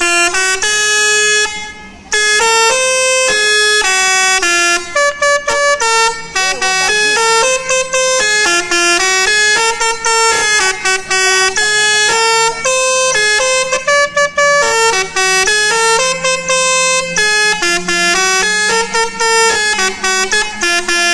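Bus's Basuri telolet musical horn playing a tune: a loud, quick run of stepping horn notes, broken off briefly about two seconds in, then carrying on without pause.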